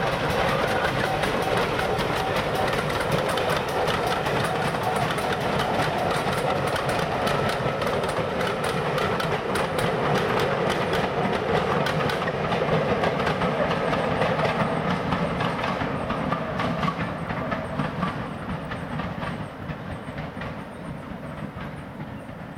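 A GWR pannier tank steam locomotive and its coaches passing, the wheels clicking rapidly over the rail joints. The sound fades away over the last several seconds as the train draws off.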